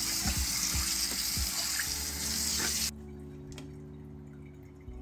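Tap water pouring onto a stainless steel sink and into its drain, rinsing away baking-soda foam. The flow cuts off abruptly about three seconds in, leaving soft background music.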